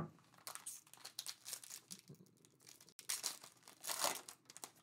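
Foil wrappers of Topps Chrome Update jumbo card packs crinkling and tearing as they are opened by hand, in irregular crackles, sharpest right at the start and busiest about three seconds in.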